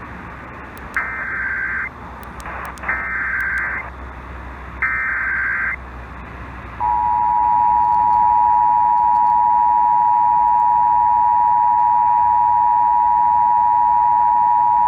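Emergency Alert System tones received over AM radio. First come three one-second bursts of SAME digital header data, each about a second apart. Then, about seven seconds in, the EAS two-tone attention signal (853 and 960 Hz sounding together) starts and holds steady and loud, under light radio hiss and hum.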